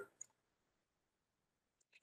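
Near silence with a few faint computer keyboard keystroke clicks, one just after the start and a couple near the end.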